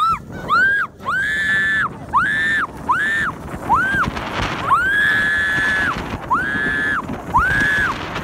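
A woman screaming in fright over and over: about nine high-pitched screams, each rising then falling, mostly short with two held for about a second.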